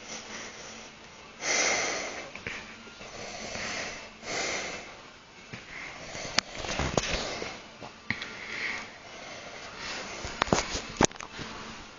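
A sleeping person snoring: noisy snorting breaths every two to three seconds, with a few sharp clicks in the second half.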